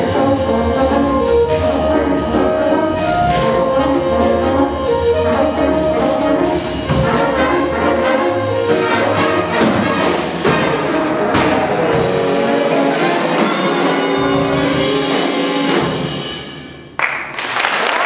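Jazz big band of saxophones, trumpets, trombones, drum kit and upright bass playing the closing bars of a tune, ending on held notes that die away; applause breaks out near the end.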